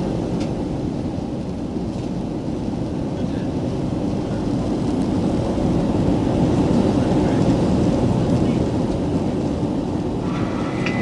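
Steady roar of engine and airflow noise inside the cabin of an Airbus A330 airliner in flight.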